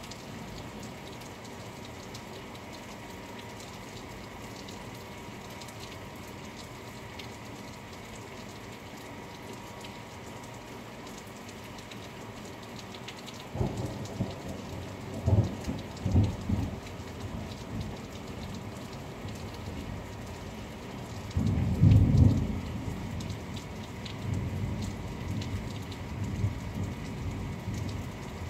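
Steady rain falling, with thunder breaking in suddenly about halfway through: a few rumbling peaks, then a louder, longer peal about eight seconds later.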